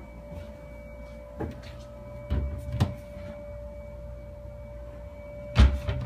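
Wooden kitchen cabinet doors being opened and shut: a few light knocks, then one much louder bang near the end as a door closes. A steady faint hum runs underneath.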